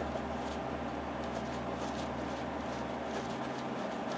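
Steady hum of a shop heater running, with a few faint clicks of a hand tool working on the engine.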